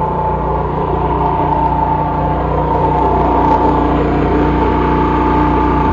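Small generator engine, its carburettor modified to run on petrol or biogas, running steadily with a constant hum and a steady whine.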